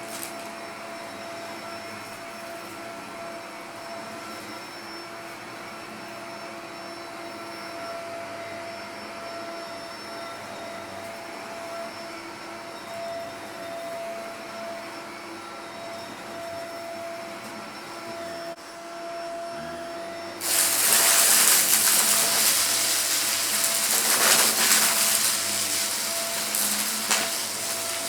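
Vacuum cleaner running with a steady whine. About twenty seconds in it turns much louder, into a rushing noise full of crackles and rattles as it sucks up debris.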